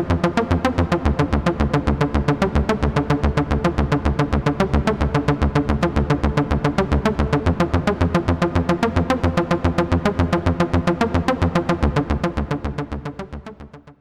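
Synthesizer playing a fast, even stream of pulsing notes, about six a second, with a heavy bass underneath, fading out over the last two seconds.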